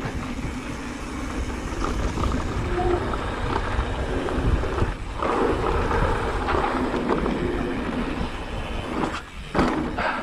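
Wind buffeting the microphone over the rumble of mountain-bike tyres rolling on a dirt trail while riding. The noise dips briefly about five seconds in and again near the end.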